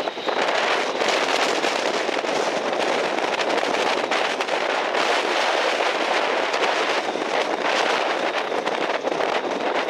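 Strong gusty wind crackling and buffeting on the microphone over the rush of breaking surf, a steady, dense noise.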